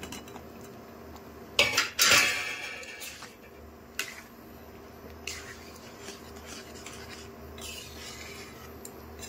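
Steel plate clattering against a steel cooking pan as paneer cubes are tipped in, a burst of clanks about two seconds in, followed by a spatula stirring and scraping through thick gravy against the pan's metal.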